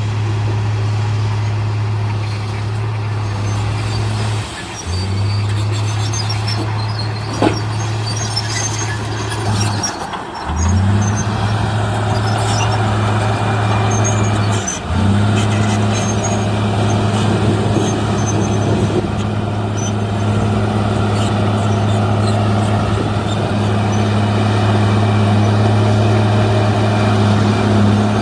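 Heavy diesel engine of earthmoving machinery working under load at a steady pitch. The note dips briefly three times and picks up again, once with a short rising rev.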